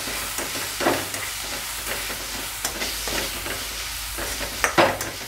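Chopped onion and green chilli-garlic paste sizzling in hot oil in a steel kadhai, with a metal spatula scraping across the pan as it is stirred. The sizzle is a steady hiss; the spatula strokes come irregularly, the loudest about a second in and near the end.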